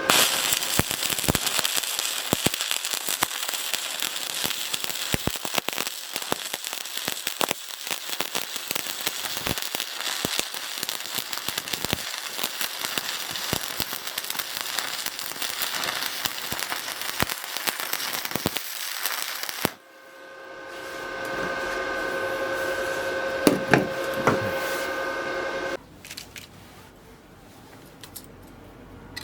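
Electric arc welding with a stick electrode: the arc crackles and sputters steadily for about twenty seconds, then stops. A steady hum with a couple of knocks follows for several seconds and cuts off abruptly.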